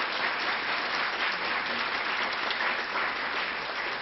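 An audience applauding, a dense steady patter of many hands clapping at once.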